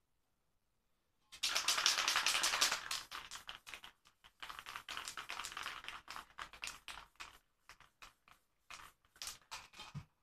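Aerosol spray-paint can spraying: one long hiss, then a quick series of short spurts and sputters as the nozzle is pressed and released in rapid taps. A brief low thud near the end.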